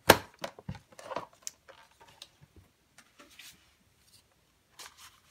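A sharp knock just after the start, then light rustling and small taps as a strip of punched cardstock is lifted off a paper trimmer and the trimmer is moved aside.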